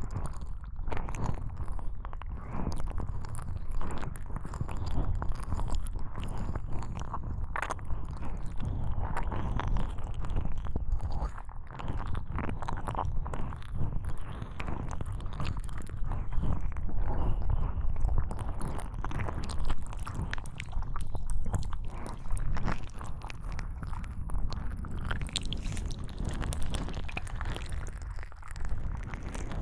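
Ear-cleaning ASMR on a binaural microphone: close-up, continuous crackling, scratching and rubbing in the microphone's ear, working deeper into the ear canal.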